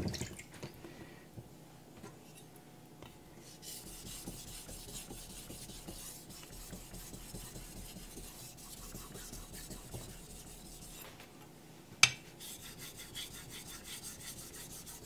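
Carbon steel knife blade being stroked across a wet 2000-grit Naniwa Aotoshi water stone, a steady gritty scraping of steel on stone and slurry that starts a few seconds in. A single sharp click about twelve seconds in, then the scraping carries on.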